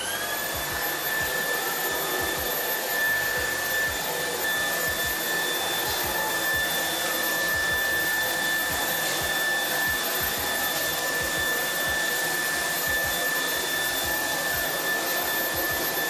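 Dreame P10 cordless stick vacuum running with its floor brush on a rug. The motor spins up at the start with a quickly rising whine, then holds a steady high whine over a dense hiss of suction.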